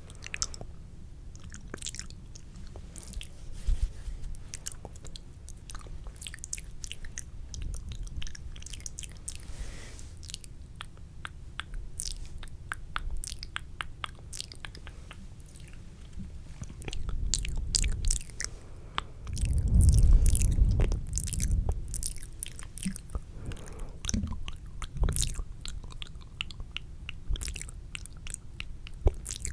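Wet, spitty ASMR mouth sounds close to the microphone: a dense, irregular run of sharp clicks and smacks. Around twenty seconds in comes a louder stretch of muffled low rumbling.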